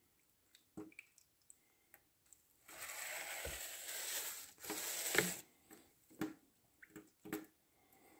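Small paint roller loaded with melted beeswax rolled along the plastic foundation of a hive frame: a rough, squishing rasp for about two and a half seconds starting about three seconds in, with a sharp knock near its end. Scattered light taps and knocks before and after.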